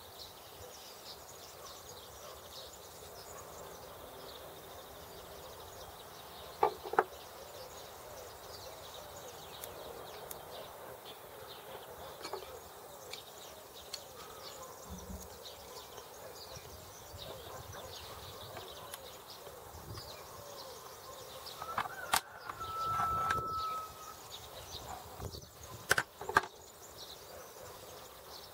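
Occasional sharp metallic clicks and taps of a hand tool against the steel axle parts of a Sachs Super 7 bicycle hub, a few seconds apart and several of them near the end, over steady outdoor background noise. A short whistle-like tone sounds about three quarters of the way through.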